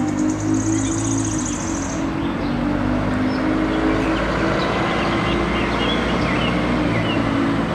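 Street traffic: a city bus's engine running steadily as it drives past, with birds chirping in the background.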